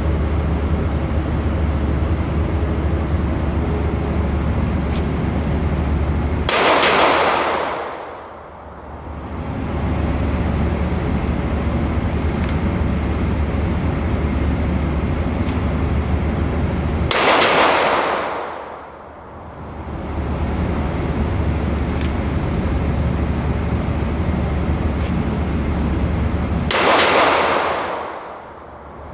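Three pistol shots from a 9mm SIG Sauer P365, spaced about ten seconds apart, over a steady low rumble. After each shot the background drops away for a second or two.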